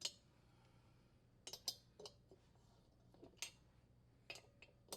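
A handful of light, sharp metallic clicks and clinks, scattered irregularly, from a 6 mm Allen wrench working the set screws that hold a washer tub mounting hub on the transmission shaft.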